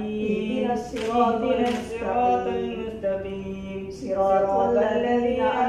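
A man's voice chanting an Islamic prayer (dua) in a slow, drawn-out melody, holding long notes.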